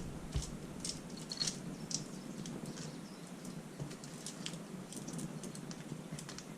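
Scattered light clicks and small metallic ticks as zip ties are snipped off a Honda 400EX timing chain and the loose chain is handled and let drop through the engine.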